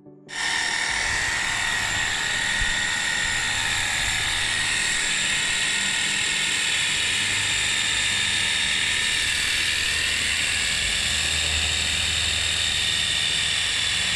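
Sunglife 20-volt cordless pressure washer running: a steady high motor-and-pump whine over the hiss of its water jet, starting abruptly a moment in and holding level throughout.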